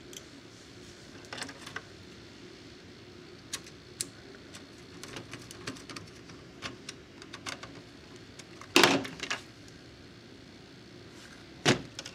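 Small clicks and ticks of a screwdriver and plastic parts being handled while screws are driven back into a Coinco Mag bill validator's plastic housing, with a louder clack about nine seconds in and another near the end.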